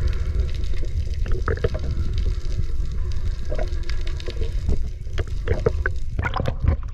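Water sloshing and splashing beside a small fishing boat, over a steady low rumble, with scattered knocks that come thicker near the end.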